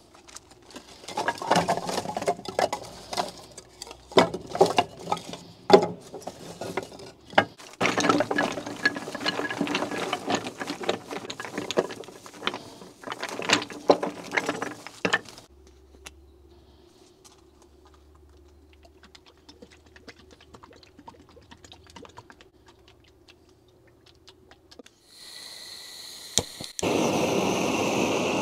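Blocks of split firewood clattering and knocking as they are tipped and stacked into a steel grill box. Near the end a butane cartridge torch starts hissing, and after a click it burns with a loud steady hiss.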